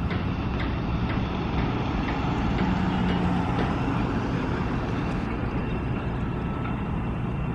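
A vehicle engine running steadily with a low hum, with faint regular ticks about three a second in the first half.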